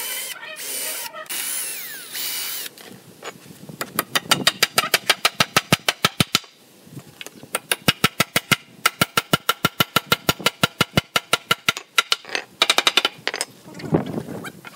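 Power tool working in bursts, with rapid, evenly spaced clicking, about ten a second, in two runs of a few seconds each.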